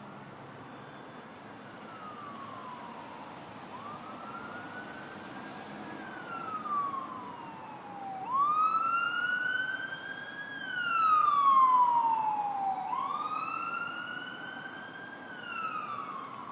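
A high screech that rises and falls in pitch in a slow, siren-like wail, one cycle every four to five seconds, growing louder about halfway through. The uploader takes it for a faulty HECO utility-pole transformer.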